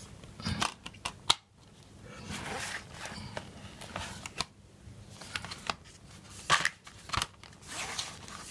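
Cardboard Blu-ray digipak being handled and its panels folded over the plastic disc trays: card rustling and sliding in short swishes, with several sharp clicks and taps.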